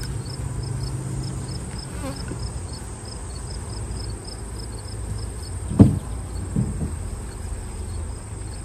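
Honey bees buzzing around an open hive, a steady low hum, with an insect chirping high and faint about three times a second. A single sharp knock about six seconds in, with a lighter one soon after, as wooden hive boxes are handled.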